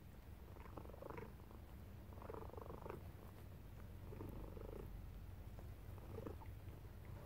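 A faint, low, continuous rumble with a fine fast pulse, swelling softly every second or two.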